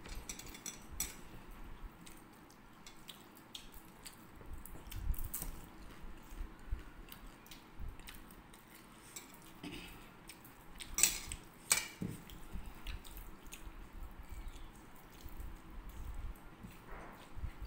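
Eating by hand: fingers mixing rice and vegetables on plates and mouths chewing, heard as scattered small wet smacks and clicks, with two sharper clicks close together past the middle.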